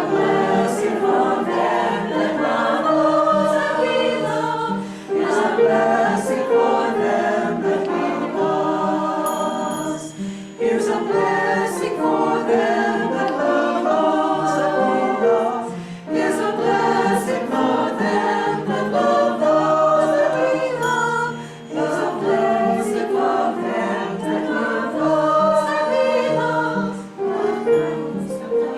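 A choir singing a hymn in phrases of about five seconds, with a short break between phrases.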